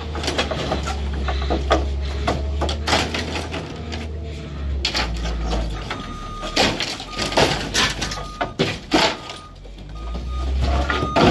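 Truck engine running with heavy knocks and clatter. About six seconds in, a vehicle's reversing beeper starts, beeping roughly once a second.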